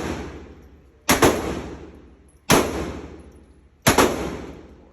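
Gunshots fired singly and slowly: three sharp reports about a second and a half apart. Each is followed at once by a quick echo and a long, fading reverberation.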